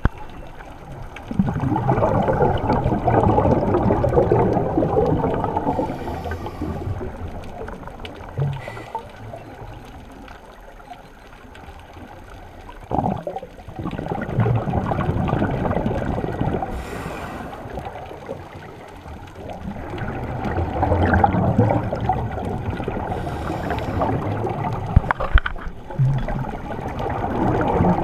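Scuba diver breathing through a regulator underwater: long gurgling rushes of exhaled bubbles, a few in all, with quieter stretches between them.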